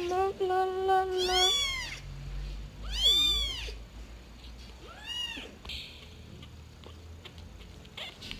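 Domestic cat meowing: a long drawn-out cry that ends in a meow about a second and a half in, then two shorter rising-and-falling meows about 3 and 5 seconds in.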